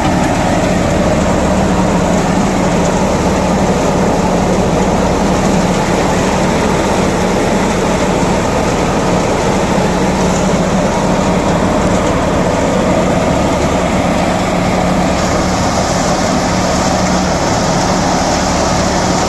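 Diamond wheat thresher driven by a Ghazi tractor, running steadily while wheat is fed in: a constant loud machine drone with a steady low hum.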